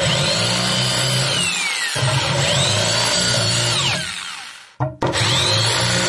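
Electric drill with a 7 mm bit drilling out rivets in a washing-machine drum, the motor whine rising as it spins up. It runs for about four seconds, stops, and starts again about a second later.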